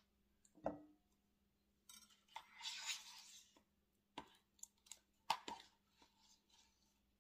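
Faint scraping and light taps of a metal measuring spoon scooping thick sour cream from its tub and knocking it off into a glass mixing bowl. A scrape comes about two and a half seconds in, and a few sharp clicks come over the following couple of seconds, over a faint low hum.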